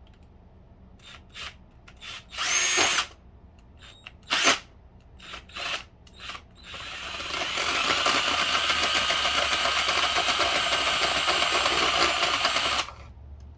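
Power drill boring a hole through a PS3's plastic casing: two short bursts, then a steady run of about six seconds that stops abruptly near the end.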